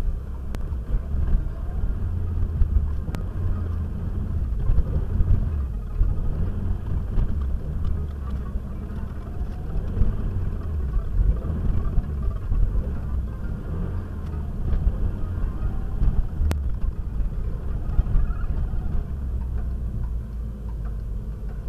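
Cabin noise of a Renault Mégane RS Red Bull RB8 driving slowly through town streets. Its 2.0-litre turbo four-cylinder engine and tyres make a steady low rumble that swells and eases as the car moves.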